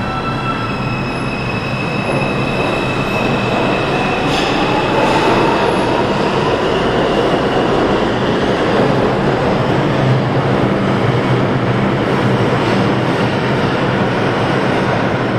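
R142 subway train pulling out of the station and accelerating away. Its motors give a whine that rises in pitch a few seconds in, over the steady rumble and rattle of the wheels on the rails as it runs off into the tunnel.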